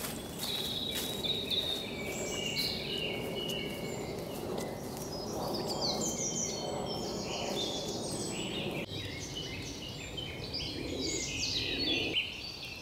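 Woodland birds singing, with many short, overlapping chirps and trills, over a steady low background rumble.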